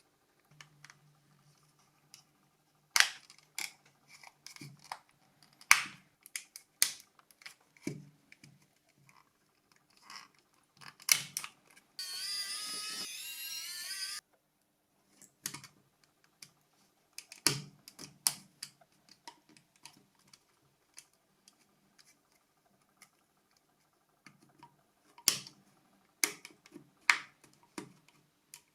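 Plastic clicks and taps from a Nokia 6233 mobile phone being handled and taken apart: the battery cover and body shell are worked loose. The clicks come at irregular intervals, some in quick clusters, with a harsher two-second scraping sound about twelve seconds in.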